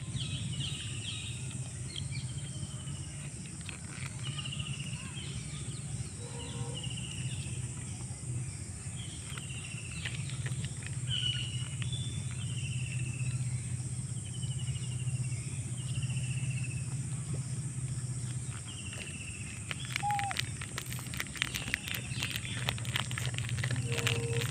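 Outdoor ambience: a bird repeats a short falling call about once a second for most of the clip, over a steady high insect drone and a low steady hum. A run of quick clicks and crackles comes in near the end.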